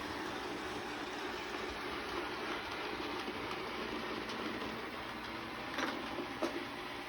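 A steady rushing noise, with two light clicks near the end.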